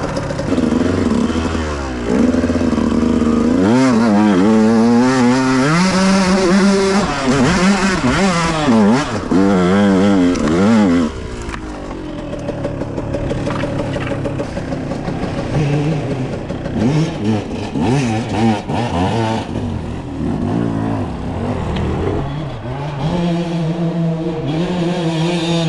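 Dirt bike engine revving hard, its pitch swinging rapidly up and down as the throttle is worked, for about nine seconds. It then runs lower and less busily, and settles into a steady note near the end.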